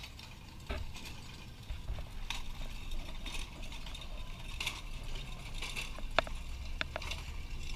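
Keyboard percussion instruments on wheeled carts being pushed along a concrete sidewalk: casters rumbling and the metal frames rattling and clicking irregularly.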